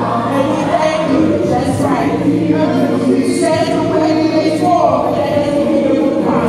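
A large group of voices singing together, with a steady low hum underneath.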